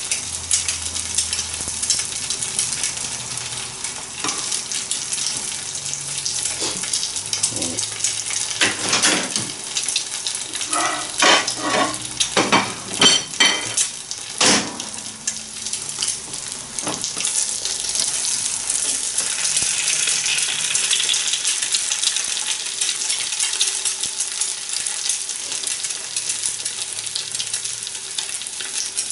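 An egg frying in hot bacon fat in a frying pan, sizzling steadily. A flurry of sharp clicks and knocks comes roughly halfway through.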